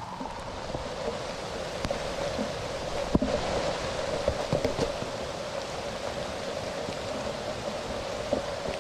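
Steady rain hiss, with a single sharp thud about three seconds in and a few fainter knocks after it. The thud is the kind of 'duk' of something falling that startles the camper.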